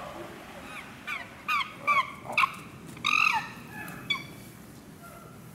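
Chimpanzee calls: a quick run of short, high calls, each falling in pitch, starting about a second in, then a longer, louder call around three seconds and one last short call about a second later.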